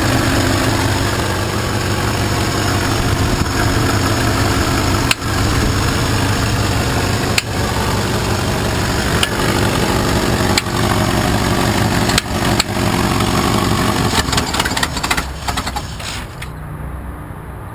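Engine running steadily, with an irregular knocking or ticking that comes and goes and a few brief stumbles at uneven intervals. Near the end the sound drops away and becomes quieter and duller.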